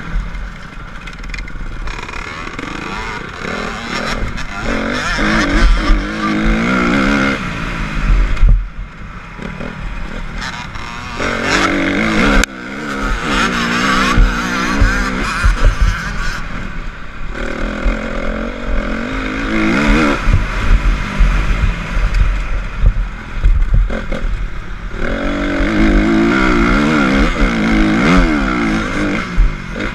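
Honda CRF250's single-cylinder four-stroke engine revving hard under a motocross ride, the pitch climbing again and again and dropping sharply at each shift or throttle chop.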